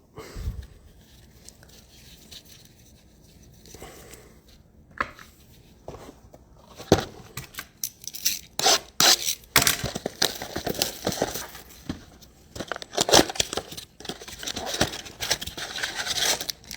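Trading-card pack wrappers being torn open and crinkled by hand, with a few sharp clicks. It is fairly quiet for the first few seconds, then the tearing and crinkling come thick through the second half.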